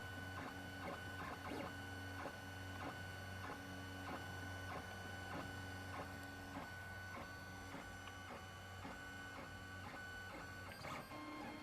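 Lulzbot TAZ 5 FDM 3D printer running a print: a steady low hum from the stepper motors with whining tones that start, stop and change pitch as the head moves, and light irregular clicks.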